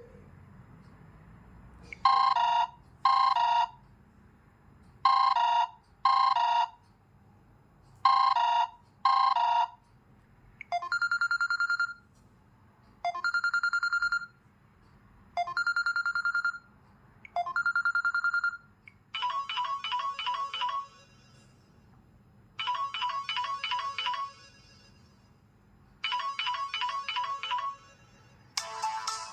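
Samsung Galaxy Mini ringtones played one after another. First comes a warbling double ring, heard three times. Then a steady trilling beep sounds in four bursts, and then a short electronic phrase repeats three times, with another ringtone starting near the end.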